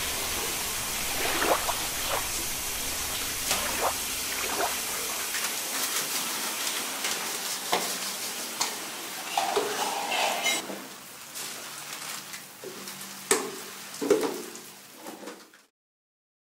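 Hiss of running water that thins and fades away, with scattered crinkles and crackles of plastic wrappers being handled, a few sharper ones near the end, before everything cuts off abruptly.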